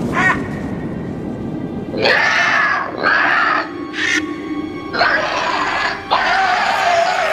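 Eerie music from a vulture animatronic's sound effects, with several harsh screeching bursts, each about a second long, starting about two seconds in over a low steady drone.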